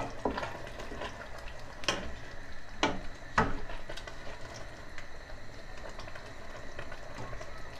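Thick tomato-and-pepper sauce boiling in a steel pot while a spoon stirs it, with a few sharp knocks of the spoon against the pot.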